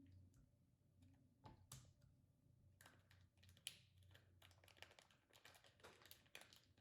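Faint, irregular clicks and crackles of slime being squeezed and worked in the hands.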